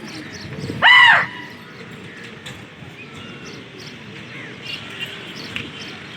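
One loud bird call about a second in, rising and then falling in pitch, over faint high chirps of small birds repeating throughout.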